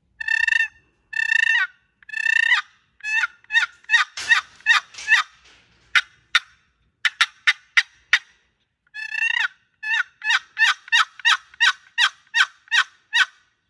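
Turkey box call with a purpleheart lid on a solid cedar box, played as hen yelps: three drawn-out yelps, a quicker series, a run of short sharp notes near the middle, then a long even run of yelps.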